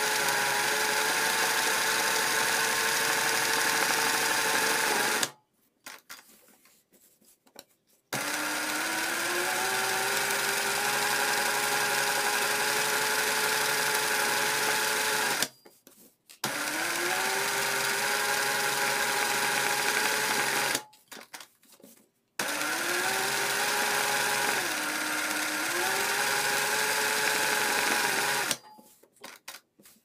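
Industrial sewing machine stitching free-motion embroidery in four runs of several seconds, stopping briefly between them. Its pitch climbs as each run gets up to speed, and dips briefly once during the last run.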